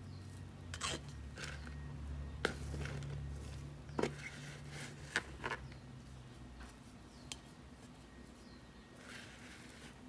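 A table knife scraping and pressing loose, fibrous potting soil in a ceramic pot, with a handful of sharp taps of the blade. Near the end comes a soft rustling hiss as more loose soil starts pouring in.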